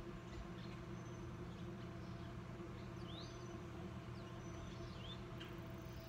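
Backyard ambience: a steady low mechanical hum with a few short, rising bird chirps, about three seconds in and again near four and a half.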